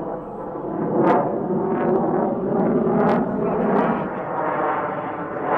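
F-22 Raptor's jet engines during a demo pass overhead: a loud, dense rumble with several sharp cracks breaking through it, about a second apart.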